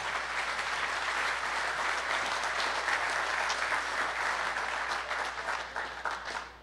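Audience applauding: dense, steady clapping that tapers off near the end.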